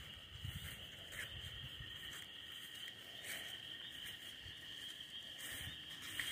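Steady high trill of a night insect chorus. Faint swishes of footsteps through grass come roughly once a second.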